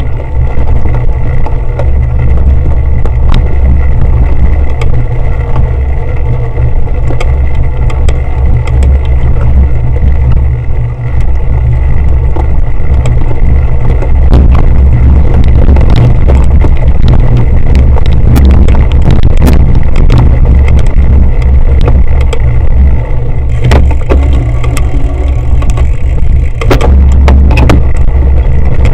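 Heavy low rumble of wind and vibration on a bike-mounted action camera's microphone as a cyclocross bike rides over bumpy grass, with frequent sharp knocks and rattles from the bike.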